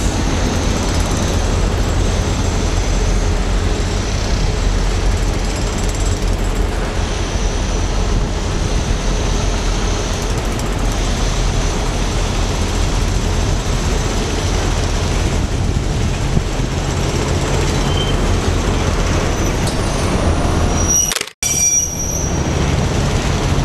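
EMD 16-645E two-stroke V16 diesel engine of a G26CU locomotive running with a steady low drone as the locomotive rolls slowly closer. The sound cuts out for a moment near the end.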